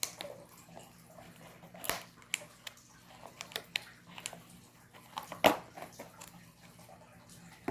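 Scattered small clicks, taps and handling noises from the turtle's shipping container and packing being handled, the loudest knock about five and a half seconds in.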